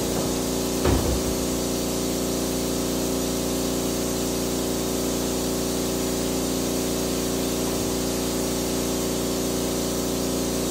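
Electric pest-control sprayer running steadily, its motor giving a constant hum with a faint hiss, as insecticide is applied into kitchen cabinets for cockroaches; a short knock about a second in.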